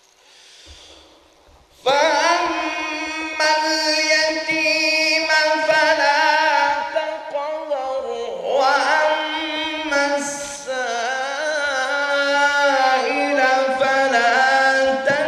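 A solo male voice chanting Quran recitation in the slow melodic tilawah style: long drawn-out notes with ornamented, wavering pitch, sung into a bank of microphones. It starts suddenly about two seconds in, after a short hush.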